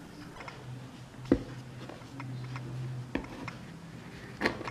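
Hands handling small objects on a tabletop in a quiet room: a few light knocks and clicks, the sharpest about a second in and a quick cluster near the end.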